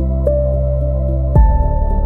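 Slow ambient new-age music: sustained synth pads over a deep drone, with a soft new note entering near the start and a fuller chord change with a low swell about a second and a half in.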